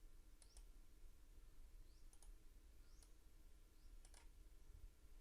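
Faint computer mouse clicks, four of them spread about a second apart, several in quick pairs, over near silence.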